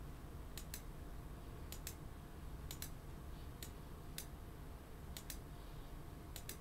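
Computer mouse button clicked about once a second, faint, each click a quick pair of ticks as the button goes down and comes back up.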